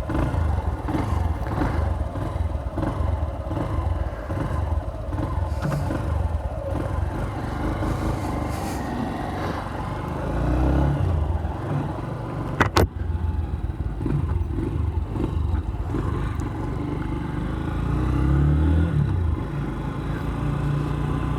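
Haojue Chopper Road 150 motorcycle's single-cylinder engine running under way, its note rising and falling with the throttle, with one sharp click a little past halfway.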